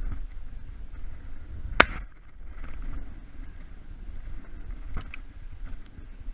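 A single loud, sharp over-and-under shotgun shot about two seconds in, fired at a flushed pheasant, with a fainter sharp crack near the end over steady low rumbling noise.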